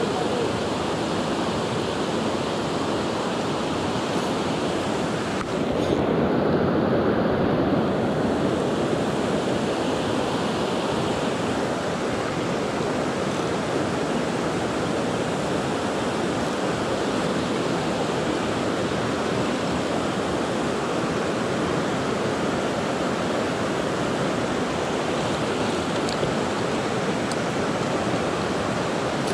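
Steady rush of a river running over rocky rapids, with rain falling on the water. The sound swells and turns duller for a couple of seconds about six seconds in.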